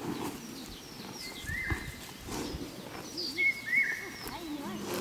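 Livestock calls, likely sheep bleating in a flock, with several high, pitch-holding bird-like calls repeating every second or two.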